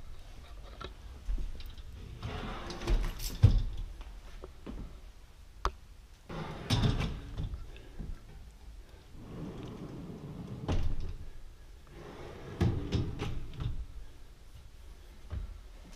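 Blind-corner pull-out organizer in a kitchen base cabinet being slid in and out: chrome wire baskets rattling along their metal runners, with knocks and clunks as the unit stops. It happens in four bouts a few seconds apart.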